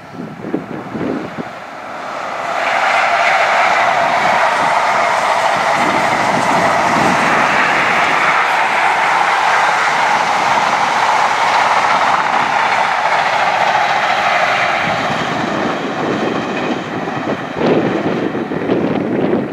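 First Great Western HST (InterCity 125) passing at speed: a loud, steady rush of wheels on rail as the coaches roll by, with some clickety-clack. It builds about two seconds in and eases off near the end.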